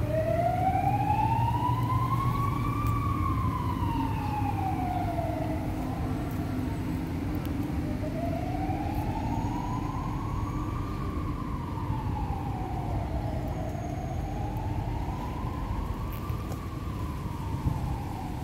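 Emergency vehicle siren sounding a slow wail, rising and falling nearly three times over a steady low rumble.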